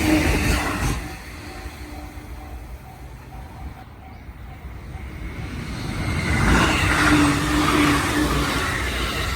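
Train noise at a level crossing dies away about a second in, leaving the crossing's warning bell ringing faintly in an even repeat. A loud rushing noise builds again from about six seconds in.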